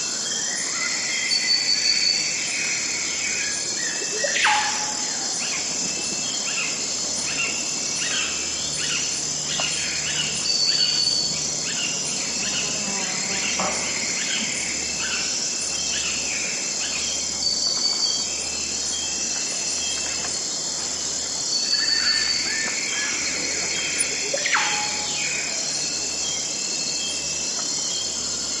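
Tropical forest dawn chorus: a steady, dense drone of insects with a fast pulsing high buzz, over many birds chirping and calling. Two calls sweep steeply down in pitch, one a few seconds in and one near the end.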